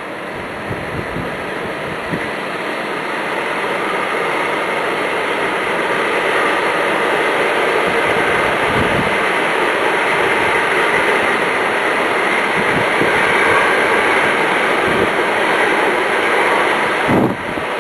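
Storm wind roaring through trees and around the houses, swelling over the first few seconds and then holding loud and steady, with gusts buffeting the microphone.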